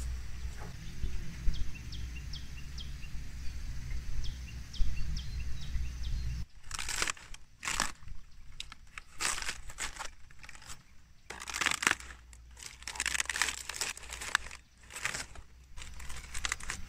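Low outdoor rumble with a few faint high chirps, then from about six seconds in, crisp crunching and tearing of leaves in irregular bursts.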